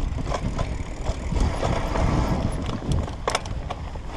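Mountain bike rolling down rocky dirt singletrack: a steady low rumble of tyres and wind on the microphone, with sharp clicks and knocks from the bike rattling over rocks and roots, the strongest about three seconds in.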